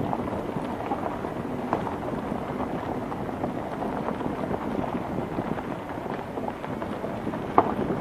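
Vehicle driving slowly along a rough dirt-and-gravel road: a steady rumble of tyres over stones and ruts, with a few light knocks and one sharp knock near the end.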